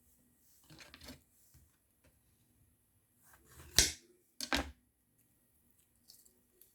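Kitchen handling sounds from food preparation: a short rustle about a second in, then two sharp knocks or clatters close together near the middle.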